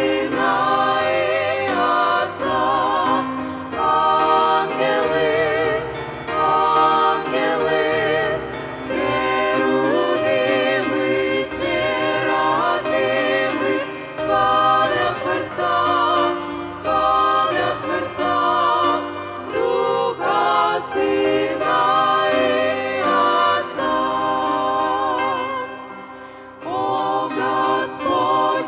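A mixed ensemble of men's and women's voices singing a Russian-language hymn in harmony through microphones, with plenty of vibrato. The singing breaks off briefly near the end, then resumes.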